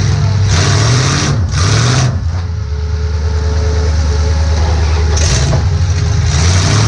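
Demolition derby car's engine heard from inside the car: a steady low rumble broken by several short bursts of louder, noisy sound as it is revved, with a steadier stretch in the middle.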